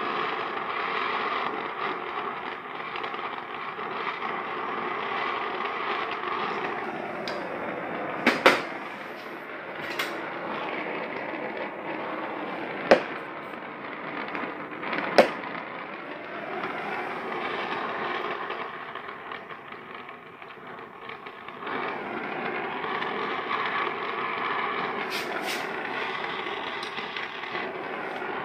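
Brazing torch flame hissing steadily as it heats joints on a water cooler's copper refrigerant lines to free the choked filter drier. The flame is quieter through the middle, where a few sharp metallic clicks from tools on the pipework come through, and it hisses again near the end.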